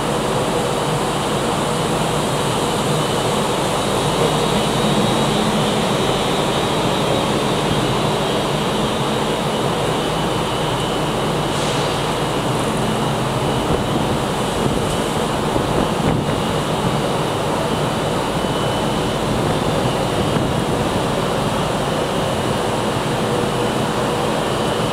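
Virgin Class 390 Pendolino electric train moving slowly alongside the platform: a steady hum and whine from its underfloor electrical equipment over a constant rushing noise.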